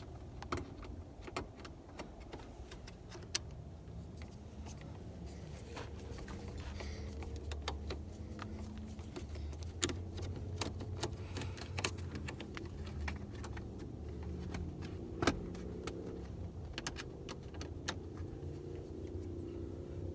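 Scattered light metal clicks and clinks from the seat's C-channel clips being slid off and unhooked around the edge of the seat, over a steady low hum.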